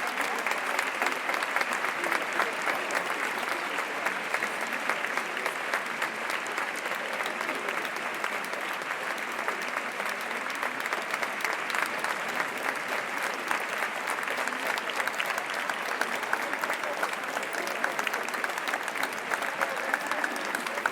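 Crowd applauding: many hands clapping in a dense, steady stream that neither builds nor fades.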